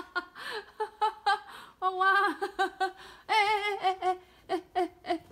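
A woman laughing: short giggling bursts a few to the second, with two longer wavering laughing notes about two and three and a half seconds in.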